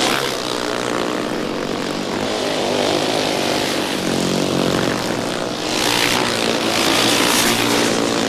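Several racing motorcycle engines running hard in a race, a continuous drone whose pitch shifts as the bikes accelerate and pass. It gets louder and harsher from about six seconds in.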